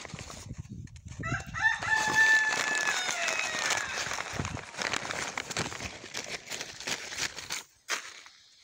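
A rooster crowing once: a few short rising notes, then a long held note that falls away at the end. It is heard over continual rustling and crackling in grass and dry leaves.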